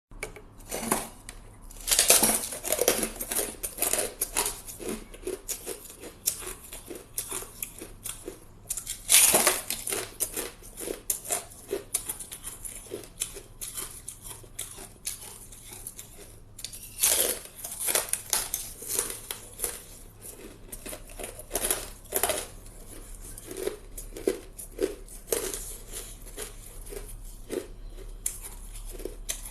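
A person biting into and chewing hard ice, close to the microphone. Loud crunching bites come about two, nine and seventeen seconds in, each followed by a run of smaller crunches as the pieces are chewed.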